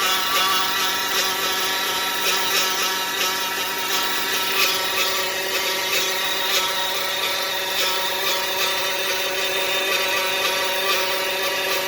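A 2015 Dodge Caravan running with a steady, unchanging whine from the engine. The fault comes with the engine light on and no forward drive.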